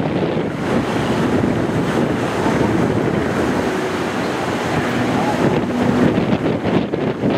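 Wind buffeting the microphone in a dense, steady rush, with the Extra 300 aerobatic plane's engine faintly audible underneath as a thin drone.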